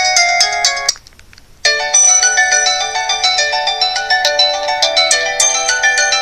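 LG Revere 3 cell phone playing its built-in Verizon ringtones loudly through its speaker. A quick chiming tune stops about a second in, and after a brief pause a melody of bright electronic notes starts.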